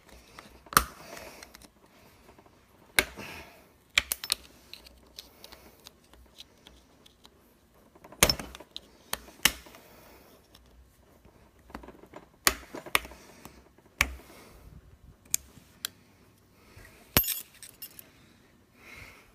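A tool working a circlip out of the body of a motocross rear shock: irregular sharp metal clicks, taps and scrapes, with the loudest clicks about 8 seconds in.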